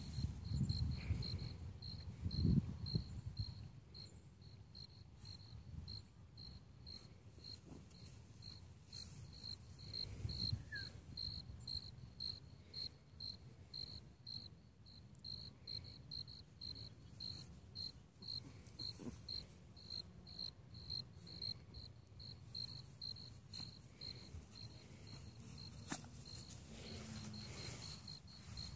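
A cricket chirping steadily in the grass, a short high chirp about twice a second, over faint low rumble.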